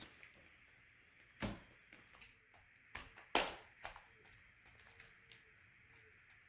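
A few scattered light clicks and taps from objects being handled, the sharpest about a second and a half in and again around three and a half seconds, over a faint steady hiss.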